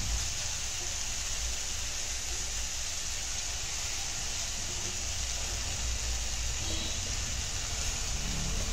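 Marinated chicken drumsticks sizzling in hot oil in a cast-iron pan as they are laid in to shallow-fry: a steady, even hiss.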